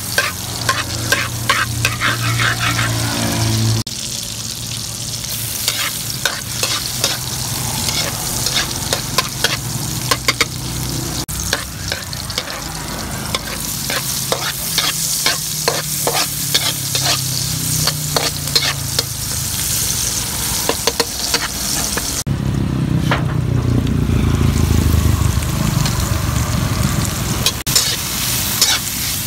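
Garlic and onion, later sliced bitter gourd, sizzling in chicken fat and butter in a wok while a spatula stirs and scrapes the pan, with frequent sharp scraping clicks. A low rumble sits underneath for the first few seconds and again about three-quarters of the way through.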